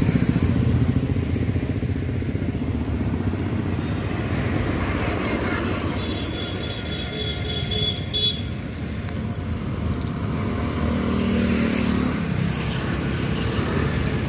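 Road traffic with motorcycle and small-engine vehicles running past, a low engine rumble loudest at the start. A high-pitched toot sounds about six seconds in and lasts about two seconds.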